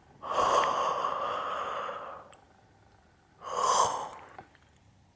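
Breathy, open-mouthed 'haaa' breaths right at the microphone, as in fogging: one long breath of about two seconds, then a shorter one about three and a half seconds in.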